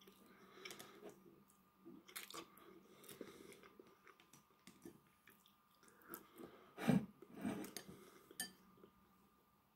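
Wooden chopsticks tapping and scraping in a ceramic bowl, picking out the last of the rice, with chewing in between. A louder knock comes about seven seconds in.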